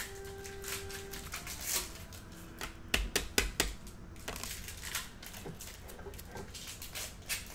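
Trading cards and packs being handled on a table: scattered clicks and taps, with a quick run of louder knocks about three seconds in.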